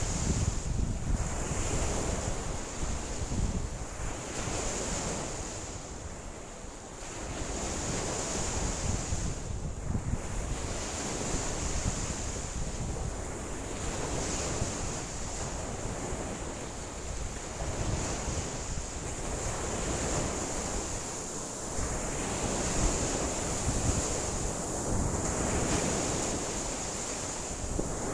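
Rough lake waves washing and breaking on the shore in a strong wind, with wind buffeting the microphone. The sound swells and eases every few seconds.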